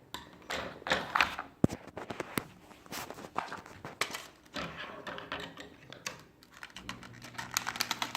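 Plastic toy packaging being cut with scissors and pulled open: irregular clicks, snips, snaps and crinkles of plastic and cardboard.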